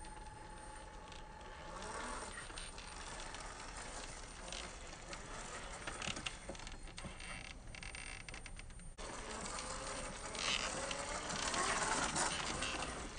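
Electric motor and geared drivetrain of a Traxxas TRX-4 RC rock crawler whining as it creeps over rock, the pitch rising and falling with the throttle, with small clicks and scrapes of tyres and chassis on stone. Louder in the last few seconds.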